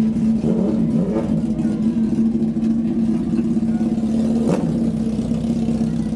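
Suzuki GSX-R motorcycle engine running steadily at a constant pitch, with one sharp click about four and a half seconds in.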